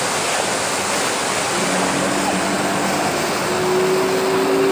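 Steady rush of a waterfall, with the steady hum of an engine joining about one and a half seconds in.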